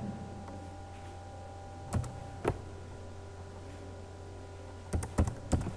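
Computer keyboard keystrokes: two single key presses about two seconds in, then a quick run of about five near the end, over a steady low hum.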